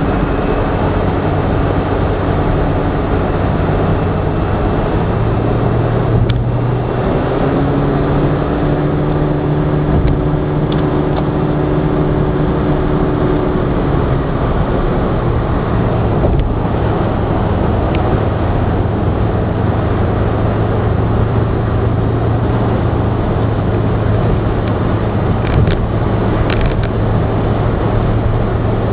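Car running at expressway speed, heard from inside the cabin: steady tyre and road noise with a low engine hum. The engine note rises for several seconds midway, then drops back.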